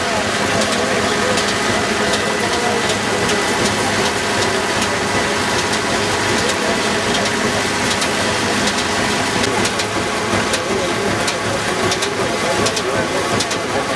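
Ajuria threshing machine running at speed with sheaves being fed in: a steady, dense clatter and hiss of its drum, shakers and straw. A tractor engine drives it by belt underneath.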